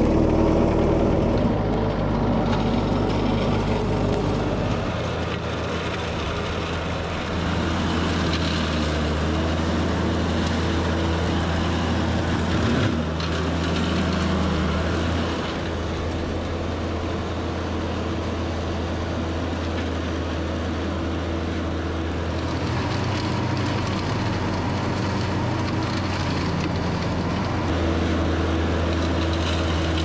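Green Climber LV500 remote-controlled tracked flail mower running at working revs, its forward-mounted hammer flail spinning as it cuts through gorse. The engine note shifts in pitch and load several times as the machine works.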